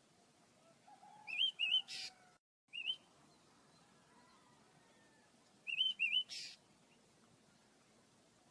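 Small pet birds chirping: short rising chirps in quick runs of two or three, heard twice, each run followed by a brief hiss.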